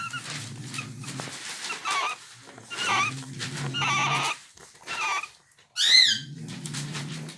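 English bulldog snoring in three long, low, rasping breaths. Her nursing puppies squeak and whine above it, loudest in one sharp squeal about six seconds in.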